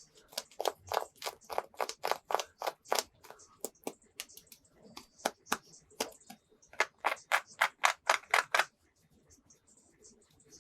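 Quick runs of sharp taps on a plastic toy, about four or five a second, with short pauses between runs; they stop well before the end.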